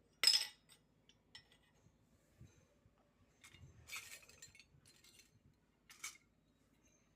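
Small pieces of a miniature toy kitchen set clinking and tapping as they are handled: a sharp clink just after the start, a busier cluster of small knocks and rattles around the middle, and another clink near the end.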